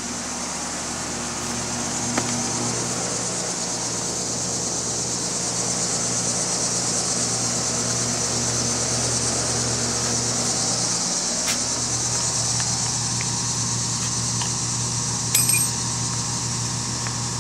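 Steady mechanical hum with an airy hiss from running heating equipment, its low hum shifting slightly about eleven seconds in. A few faint clicks and a short clatter about fifteen seconds in.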